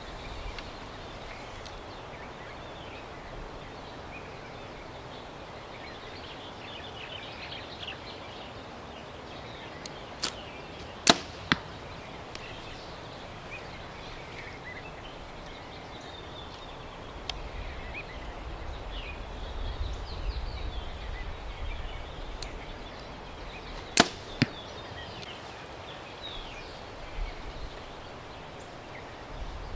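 Two shots from a 70 lb Mathews Phase 4 compound bow, about thirteen seconds apart: each a sharp snap of the string at release, followed about half a second later by a fainter knock.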